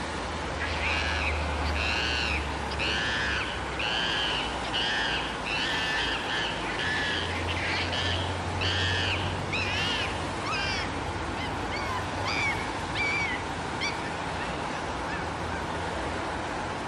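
High-pitched animal calls, one about every second, each rising and falling in pitch; after about ten seconds they turn into shorter, sharper calls and stop near the end. A steady low rumble runs underneath.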